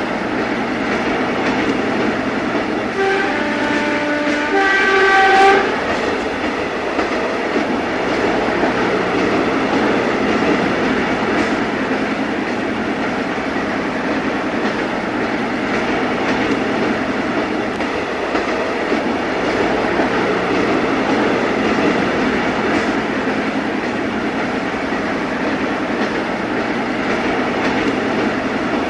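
A train running on the rails with a steady rumble and clatter. About three seconds in, its horn sounds for a couple of seconds, several notes changing in pitch.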